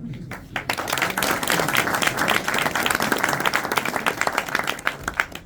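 Audience applauding, many hands clapping together, swelling about half a second in and dying away near the end.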